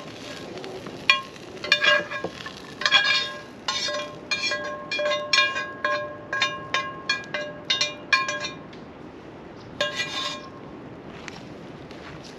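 A metal utensil clinking against a pan, a quick run of ringing strikes over several seconds, then one more a little later.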